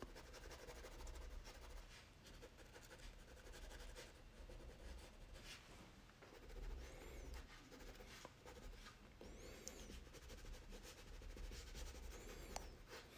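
Black Crayola crayon scratching faintly across drawing paper in many quick, short strokes, shading in the ground.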